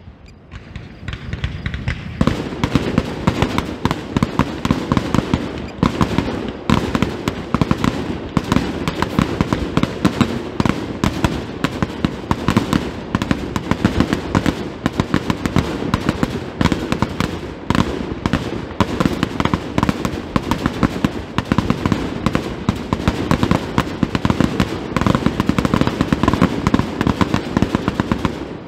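Aerial fireworks shells bursting in a dense, continuous barrage, many bangs and crackles a second. The volley thickens about two seconds in.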